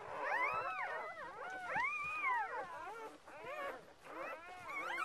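A litter of newborn puppies crying, many thin high squeals and whines overlapping, each rising and falling in pitch.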